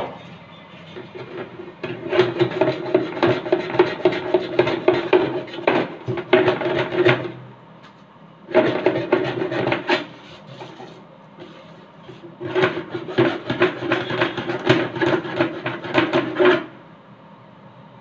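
Hand hacksaw cutting lengthwise through a 6-inch PVC pipe with quick back-and-forth strokes, in three spells with short pauses between. A steady ringing tone runs under the strokes.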